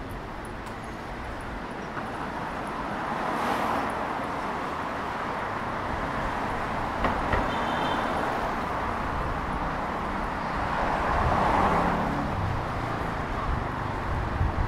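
City street traffic: a steady wash of road noise, with cars passing close by and the noise swelling twice, a few seconds in and again near the end.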